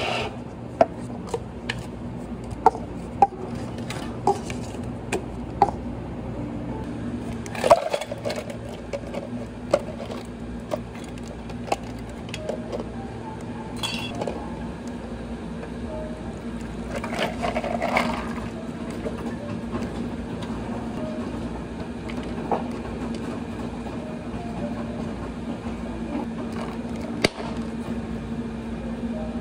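Scattered clinks and knocks of cups, glassware and dishes being handled, over a steady low hum.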